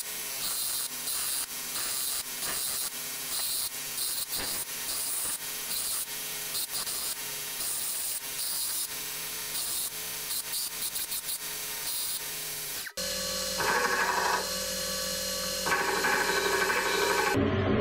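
Belt grinder regrinding the steel head of an antique carpenter's hatchet: a hissing grind that breaks off and resumes in short passes as the head is worked against the belt. About thirteen seconds in the sound changes abruptly to a louder grind with a steady hum from the machine.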